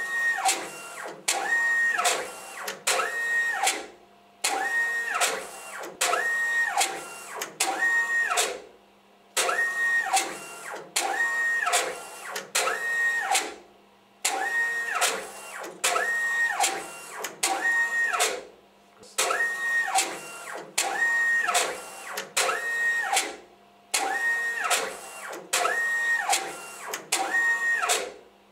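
Gantry carriage of an ELS 620 pack-coding unit shuttling its print head across the packs. Each move has a motor whine that ramps up in pitch, holds, and ramps down. The moves come just under a second apart in sets of four, with a short pause between sets.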